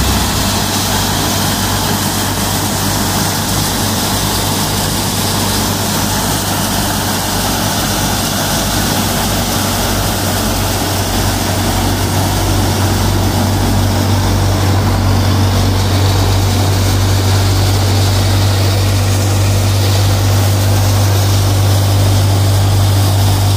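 Kubota MU5501 tractor's four-cylinder diesel engine running steadily under load, powering a Punni multi-crop thresher through its PTO. The thresher adds its own whirring and rushing over a deep, even hum.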